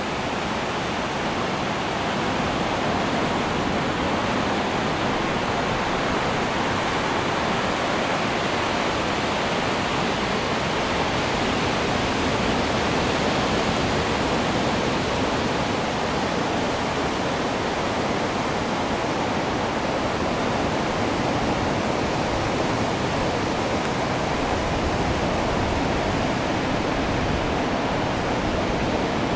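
Steady rushing noise of strong wind mixed with the wash of surf, with the wind buffeting the microphone and giving a rough, fluttering low rumble.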